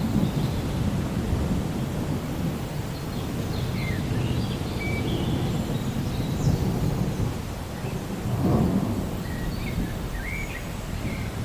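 Steady rain with a deep, continuous rumble of thunder, which swells briefly about eight and a half seconds in. A few short, faint high chirps sound over it.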